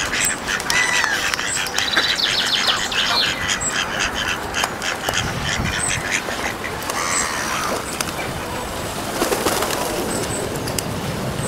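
Ducks quacking and other birds calling over a steady background rush.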